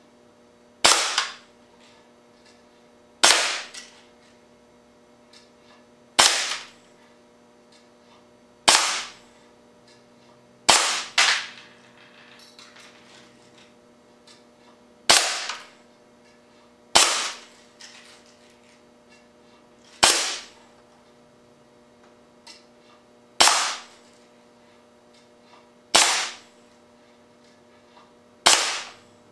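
Solenoid-valve air cannon firing quarter-inch steel BBs into an LCD monitor: about a dozen sharp shots two to four seconds apart, each with a short fading tail, two of them in quick succession about eleven seconds in.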